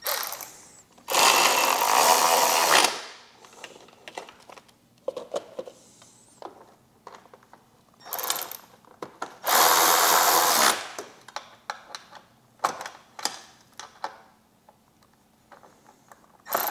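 Cordless power driver running bolts into a motorcycle's inner-fairing speaker pods. It runs in short bursts: one of nearly two seconds, a brief blip, then another of about a second. Small clicks and handling taps fall between the bursts.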